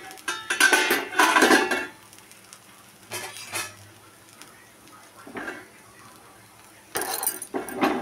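Stainless-steel pot lid clattering and ringing against metal as it is lifted off the appe pan and set down in the first two seconds, followed by a few lighter metallic clinks.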